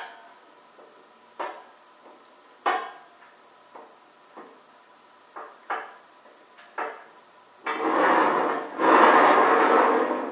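Scattered light metal clinks and knocks as the gantry crane beam trolley's bolts and side plates are handled, then, about eight seconds in, a continuous rolling rumble, broken once, as the trolley's steel wheels run along the I-beam flange.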